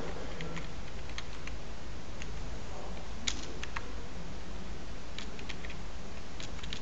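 Scattered, irregular clicks of computer keys and mouse buttons as a rotation angle is entered, over a steady low hum.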